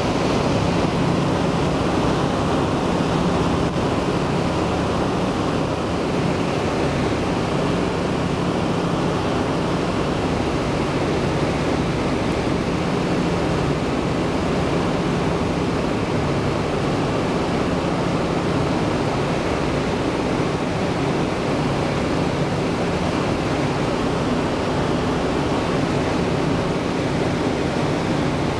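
The four Wright R-1820 Cyclone radial engines of a B-17G droning steadily in flight, heard from inside the fuselage under a constant rush of airflow. The level and pitch hold steady, with no change in power.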